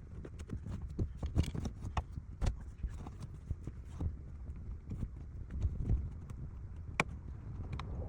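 Irregular knocks and clicks of hands and tools working on car interior parts, scattered at uneven intervals over a low rumble, with one sharper click about seven seconds in.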